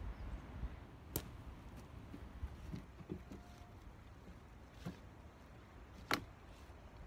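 Logs knocking against each other as a log is set onto a stacked log wall: a sharp wooden knock about a second in, softer thuds in the middle, and the loudest knock about a second before the end.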